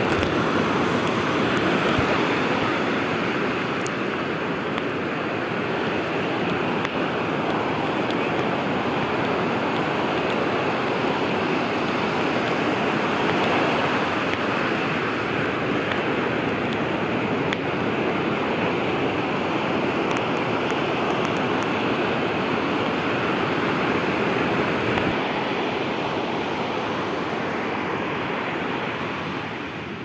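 Small ocean surf breaking and washing up the sand at the water's edge, a steady rushing, easing a little near the end.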